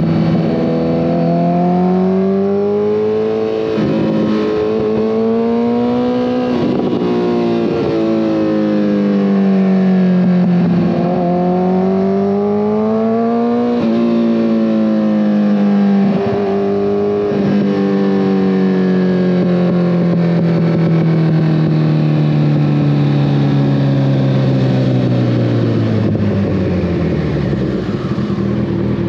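2014 Kawasaki ZX-14R's inline-four engine through a full Brocks Alien Head 2 exhaust, pulling hard with its revs rising and dropping several times. In the second half the engine note falls slowly for about ten seconds as the bike slows, then climbs again right at the end.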